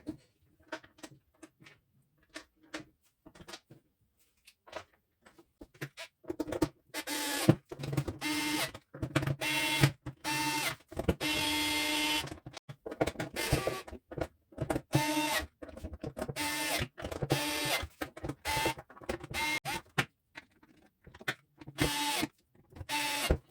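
Faint clicks of parts being handled, then a small cordless power driver whirring in many short bursts of about half a second to a second each at a steady pitch, driving in screws.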